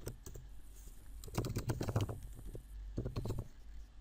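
Typing on a computer keyboard in short runs of key clicks. A few keystrokes come near the start, a quick run from about one to two and a half seconds in, and another short run around three seconds in.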